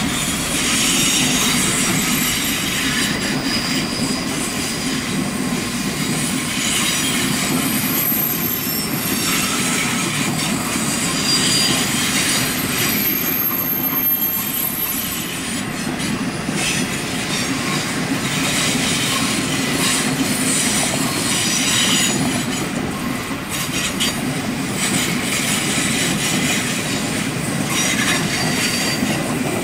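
Passenger train carriages rolling past, wheel and rail noise swelling and fading as each set of wheels goes by, with short high-pitched wheel squeals now and then.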